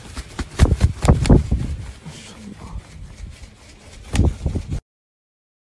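A green-winged macaw flapping and scuffling on a floor mat, with a run of heavy thumps and wing beats about half a second to a second and a half in and a second cluster near four seconds; the sound cuts off suddenly near the end.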